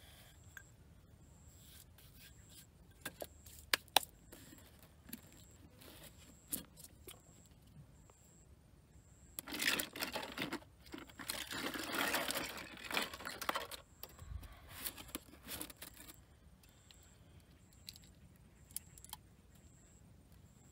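A few sharp knocks of a knife on a wooden chopping board, then several seconds of loud plastic rustling and crinkling as a hand rummages in a foam cooler box, fading to smaller rustles.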